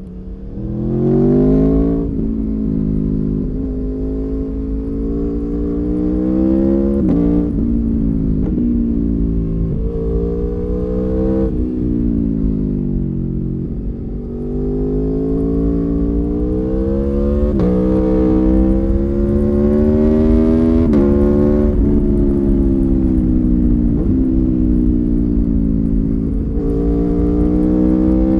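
The 2019 Aprilia Tuono V4 1100 Factory's V4 engine, heard onboard, pulling through the gears: the revs climb steadily and drop sharply at each upshift, several times, fall away once around halfway as the bike slows, then climb again. Wind rush runs underneath.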